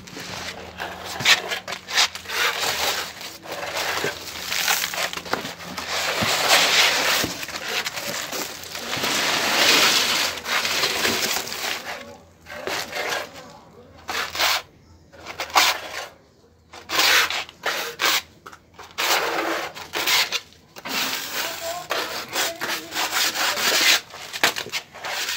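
Rough scraping and rubbing strokes against a textured render wall, coming in irregular runs, with short pauses in the middle.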